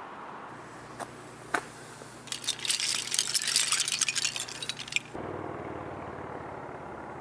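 Two sharp clicks, then about three seconds of rapid high-pitched clinking and crackling, as of small hard objects knocking together, which cuts off abruptly.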